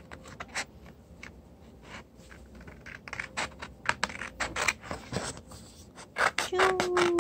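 Scissors cutting green A4 paper, a string of irregular crisp snips as the blades close through the sheet along a printed outline. Near the end a short hummed note from a voice, falling in pitch.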